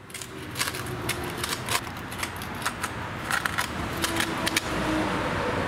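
Utility knife blade slicing down through a ribbed plastic pet mat, giving a fast, irregular run of crisp ticks and crackles as it cuts across the ribs.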